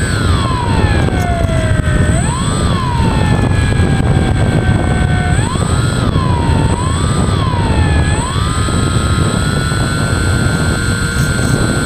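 Brushless electric motor and propeller of a FunJet foam RC plane whining, heard from its onboard camera over a heavy rush of wind. The pitch sinks, rises again about two seconds in, blips up and down several times around six to eight seconds in with the throttle, then holds steady.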